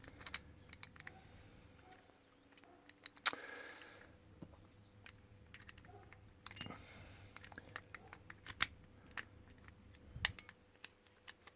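Irregular small clicks and taps of brass padlock parts being handled and fitted back together, with a few sharper clicks among them.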